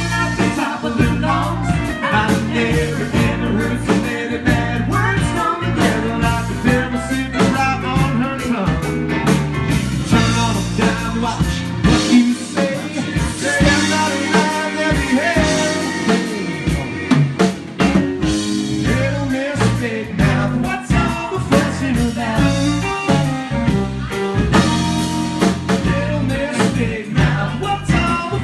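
Country band playing an instrumental break: drum kit keeping a steady beat under guitar and other instruments.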